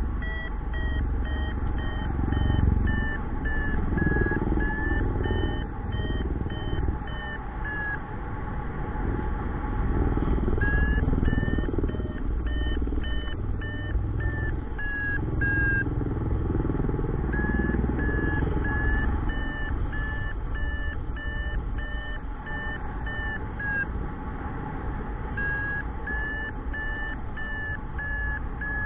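Paragliding variometer beeping in a quick, even series that shifts a little in pitch, the tone a vario gives while climbing in lift. It falls silent for about two seconds three times, over a gusty rumble of wind on the microphone.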